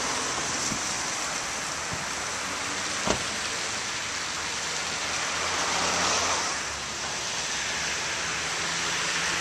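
Steady rushing noise of a splashing park fountain mixed with road traffic, with a single sharp knock about three seconds in and a vehicle rumbling past around six seconds in.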